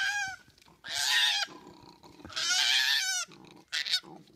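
Koala crying: about four loud, high-pitched, wavering squealing calls, with lower, rasping sounds between them.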